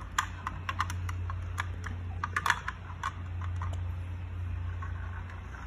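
Small plastic toy parts clicking and clattering as they are handled and fitted onto a Paw Patrol plastic toy jeep: light, irregular clicks, over a steady low hum.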